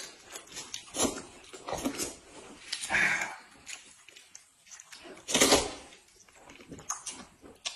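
People slurping wide flat noodles (mianpi) off chopsticks, a string of separate slurps about every second, the loudest about five and a half seconds in.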